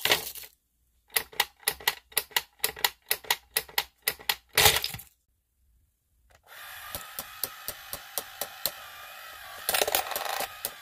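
Hard candies poured into a plastic tray, followed by a run of quick sharp plastic clicks and a louder rattle. After a short pause, a battery-powered football coin bank's small motor whirs with steady ticking as the kicker figure turns, louder for a moment near the end.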